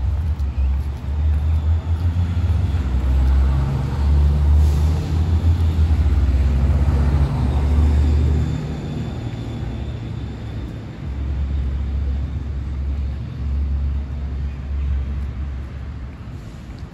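Street traffic: a vehicle passes, loudest about four to eight seconds in, over a steady low rumble.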